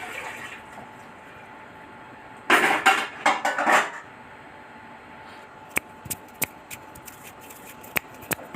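Handling of new metal clutch parts for a Honda CG 125: a second and a half of scuffling and rustling, then a string of sharp, separate metallic clinks as the parts are set down and knocked together.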